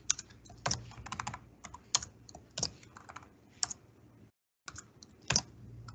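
Typing on a computer keyboard: irregular keystrokes, some in quick runs, as text is edited. The sound drops out completely for a moment about four seconds in.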